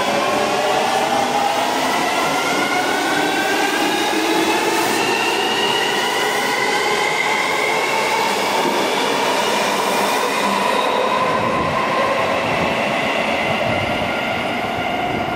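Keisei 3700 series electric train accelerating out of an underground station: its motors' inverter whine climbs steadily in pitch, several tones together, for about ten seconds over wheel and rail noise. The whine then levels off and the train noise eases slightly near the end as the last cars pass.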